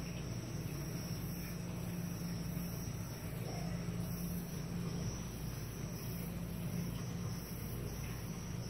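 Steady low hum with an even hiss over it: background room noise, with no distinct events.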